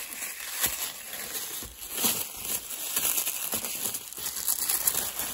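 Packaging crinkling and tearing in the hands as a small toy is unwrapped from an advent calendar compartment, an irregular run of crackles with a few louder rips.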